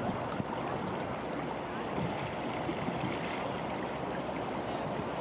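River water lapping and splashing at the bank: a steady, irregular rush of small waves.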